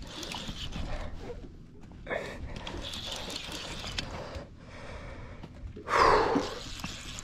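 An angler's breathing and puffs while fighting a hooked tuna on a fly rod, with a louder exhale about six seconds in.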